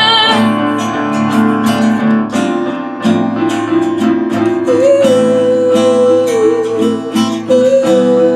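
Acoustic guitar strumming chords. About halfway through, a long, wavering held note comes in above the chords.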